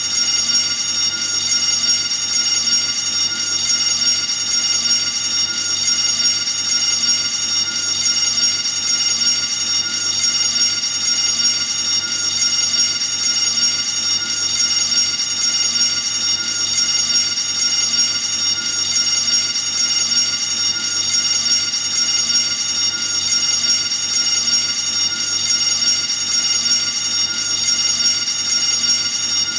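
Fire alarm ringing steadily and without a break, a loud, high, unchanging ring with many overtones.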